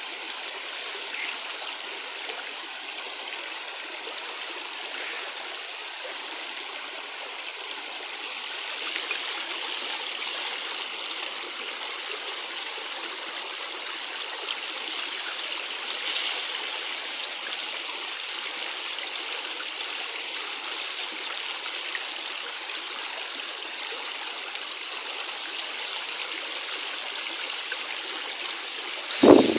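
Shallow rocky stream running over stones: a steady rush and gurgle of water. A brief loud thump just before the end.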